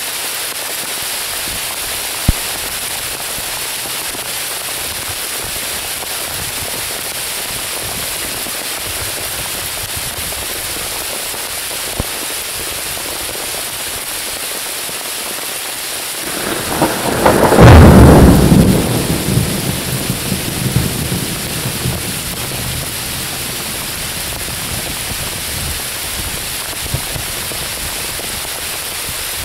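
Steady rain falling on the forest canopy, with a loud thunderclap a little past halfway that cracks and then rumbles away over several seconds. A few sharp single ticks of drops land close by.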